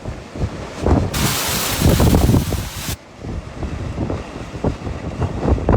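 Strong gusty wind blowing across the microphone, with low rumbling buffets. The sound changes abruptly twice, about a second in and about three seconds in.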